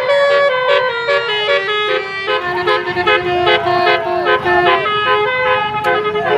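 Basuri multi-tone 'telolet' horn playing a fast tune of short stepped notes, with some swooping up-and-down glides between them.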